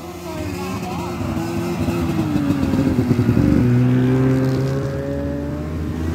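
Modern snowmobile engines running as sleds ride past on a snow trail. The drone grows louder over the first few seconds and drops in pitch about three seconds in as one goes by, then stays steady as another comes up.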